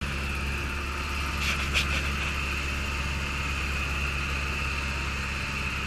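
Light aircraft's piston engine running steadily, with a couple of short clicks about a second and a half in.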